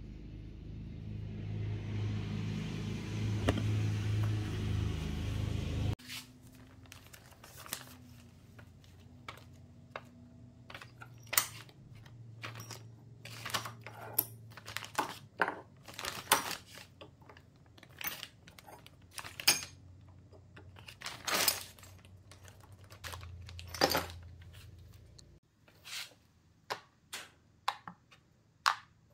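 Background music for about six seconds, cutting off suddenly. Then scattered clicks and clinks as small metal parts and the wooden knob of an old hand plane are picked up and set down on a wooden workbench, with some plastic bag rustling.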